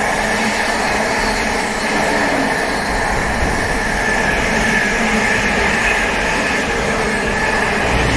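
Container wagons of a long freight train rolling past at speed: a steady rush of wheel and rail noise, with a faint steady high tone running through it.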